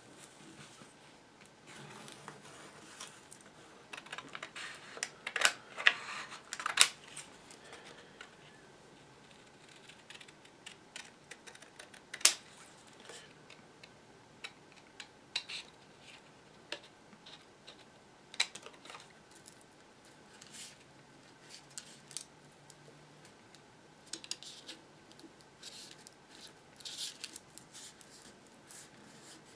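Scissors snipping cardstock, with pencil strokes on cardstock, paper rustling and light clicks from handling. The loudest strokes cluster about five to seven seconds in.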